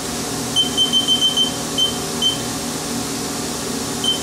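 Haas CNC control keypad beeping as keys are pressed: a quick run of short, high beeps, two single beeps near the middle, and another at the end, over a steady machine hum.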